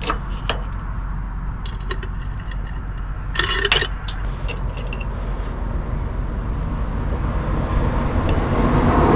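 A few scattered metallic clicks and clinks, with a louder rattling clatter about three and a half seconds in, over a steady low rumble that grows slightly louder near the end.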